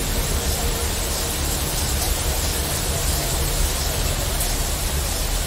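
Steady rain hiss layered over a deep, continuous low drone of sci-fi city ambience, with no distinct events.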